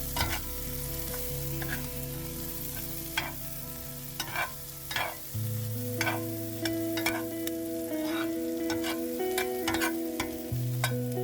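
Onions sizzling in a hot frying pan, stirred with a utensil that scrapes and taps against the pan at irregular moments, about once a second.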